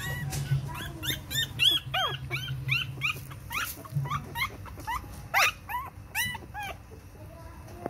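Young puppies crying: many short, high squeals, several a second, each rising then falling in pitch, with the loudest cries about two seconds in and again about five and a half seconds in.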